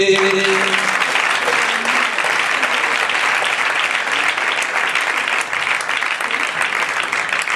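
Audience applauding steadily, a dense crackle of many hands clapping, right after a sung verse; the last held sung note dies away about a second in.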